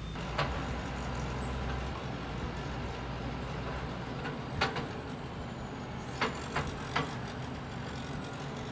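Dump truck's engine running steadily, with a few sharp knocks: one about half a second in, then a cluster between about four and a half and seven seconds in.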